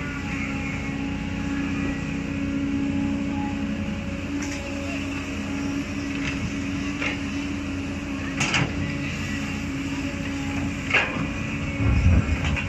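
Cat 320D excavator's diesel engine running steadily under hydraulic load, with the steel bucket scraping and clanking against rocky soil. Several sharp knocks come through, and a heavier thump near the end as the bucket bites into the ground.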